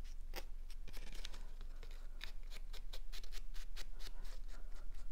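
Foam ink blending tool rubbed on a black ink pad and brushed onto the edge of a cardstock piece to shade it. It makes short, dry scratchy strokes, a few at first and then several a second from about two seconds in.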